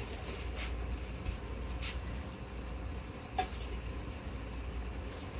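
Meat frying in a stainless skillet on the stove, a faint steady sizzle over a low hum, with three light clicks or clinks, the last about three and a half seconds in.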